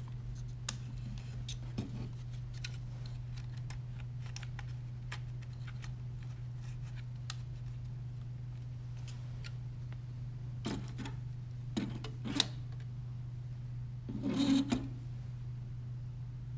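Small clicks and taps of plastic and carbon-fibre robot parts being handled and fitted together, over a steady low hum. Sharper clicks come a little after ten seconds in, and a louder clatter near the end.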